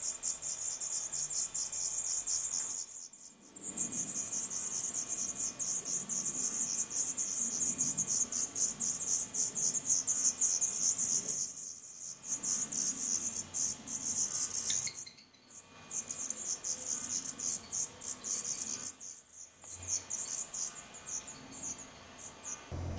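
Black redstart nestlings begging: a fast, very high-pitched chittering from several chicks, broken by a few brief pauses.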